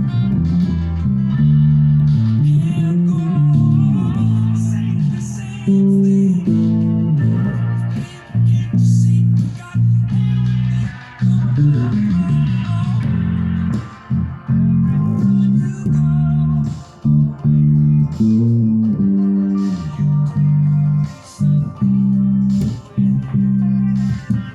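Guitar music led by a prominent bass line, its low notes changing every half second or so, with short plucked clicks on top.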